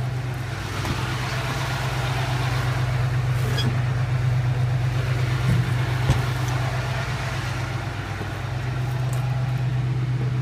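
Roll-off truck's Duramax diesel engine running steadily at a raised idle while the hoist sets the can down, with one short knock about six seconds in.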